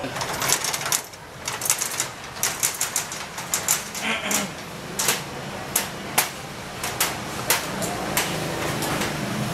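An irregular series of sharp taps and knocks, a few a second, some louder than others.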